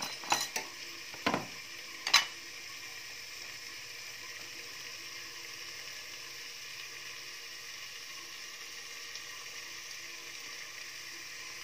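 Radish and tomato masala sizzling gently in a kadai covered with a steel plate: a steady soft hiss. A few sharp metal clinks come in the first two seconds.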